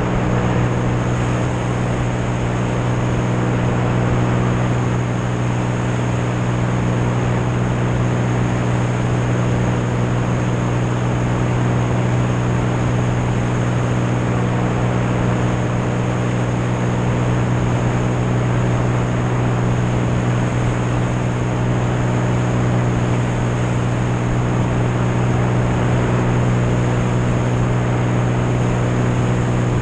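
Light propeller aircraft's engine and propeller droning steadily in cruise flight, a constant low hum with rushing air and wind buffeting on a wing-mounted microphone.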